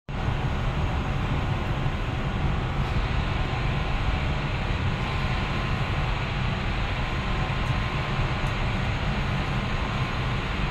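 Steady rumble and rushing noise of the Hurtigruten ship Kong Harald under way, heard from its open bow deck, with wind buffeting the phone's microphone.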